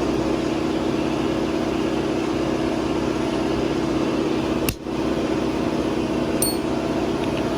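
Steady, even machine hum with a brief dip about two thirds of the way through, followed by a faint high tick.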